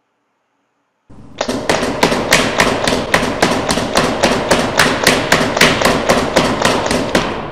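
Planet Eclipse EMF100 paintball marker firing round balls in quick succession, about four shots a second, with the balls hitting the target; the string starts about a second in and stops shortly before the end.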